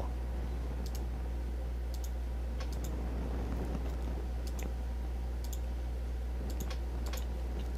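Irregular sharp clicks of a computer being operated, about ten scattered across several seconds, over a steady low electrical hum.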